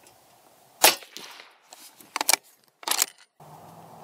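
A single suppressed shot from a 300 Blackout bolt-action rifle firing subsonic 190-grain ammunition, sounding as a short muffled report about a second in. Two shorter metallic clacks follow as the bolt is worked, and a low steady hum comes in near the end.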